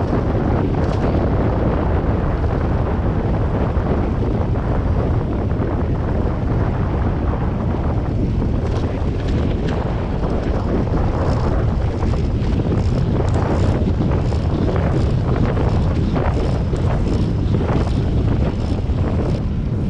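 Wind buffeting the microphone of a camera on a moving bicycle: a steady low rumble, with short crackling gusts through the second half.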